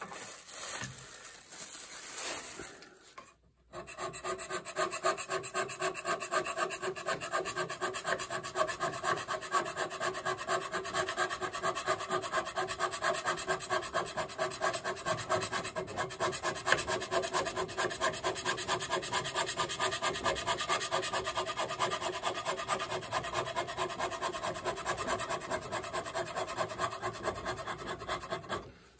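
A carbide scraper cuts the cast-iron toolpost seat of a lathe topslide in rapid, continuous strokes, each with a ringing metallic tone. The scraping starts about four seconds in, after a few seconds of lighter handling sounds.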